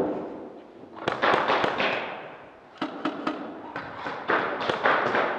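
Airsoft guns firing in short bursts: about four clusters of sharp rapid cracks, each a second or so apart.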